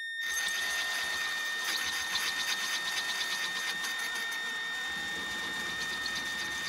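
Power drill running steadily with a 9 mm bit, boring out a nitro RC engine's carburetor venturi to 9 mm: a constant high motor whine over the rough scrape of the bit cutting.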